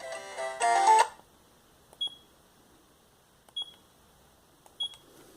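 Sagem my421Z mobile phone's polyphonic ringtone playing a quick run of notes that cuts off about a second in. It is followed by three short, high keypad beeps, each with a click.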